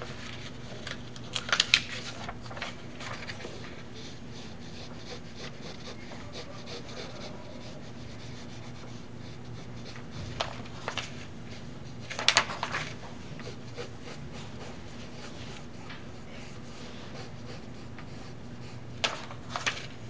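Pencil scratching softly on animation paper as a character is sketched, with the paper rustling in short bursts a few times as sheets are lifted and flipped. A steady low hum runs underneath.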